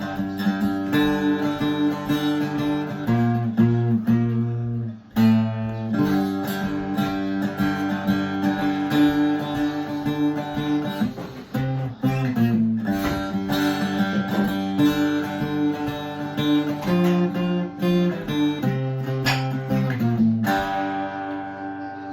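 An acoustic instrument with paired strings, flatpicked through an Irish jig. The melody is played continuously, with a brief break about five seconds in. Near the end it settles on a final chord that rings and fades.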